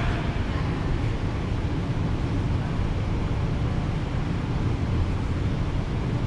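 Steady low rumble with a fainter hiss above it: the air-handling and ventilation system of a large indoor swimming-pool hall running.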